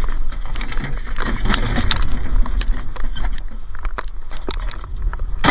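Tools being moved about: scattered clicks, knocks and clatters over a low rumble, with one sharp, loud knock near the end.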